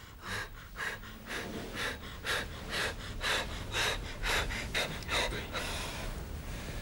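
A woman breathing hard in quick, regular breaths, about two a second.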